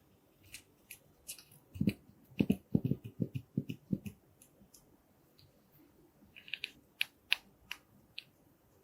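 Slime being squeezed and poked by hand: a run of soft, low squelches from about two to four seconds in, then quick sharp clicks and pops near the end.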